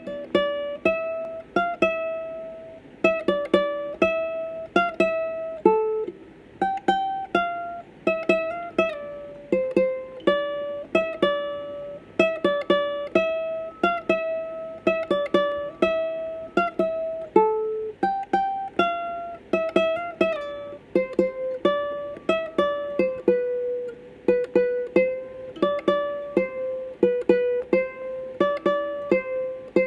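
Doner ukulele being played: a melody of plucked notes, a couple a second, each struck sharply and ringing briefly.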